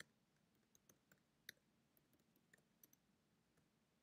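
Faint, irregular computer keyboard keystrokes as code is typed, about a dozen sharp clicks over near silence, the loudest about one and a half seconds in.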